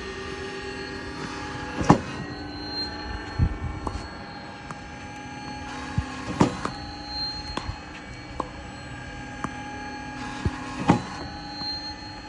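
Titan One tennis ball machine running with a steady motor hum, launching a ball with a sharp pop about every four and a half seconds, three times, with lighter knocks in between.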